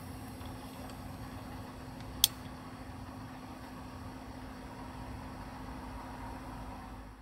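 A steady mechanical hum with a faint constant tone in it, broken once about two seconds in by a single sharp click.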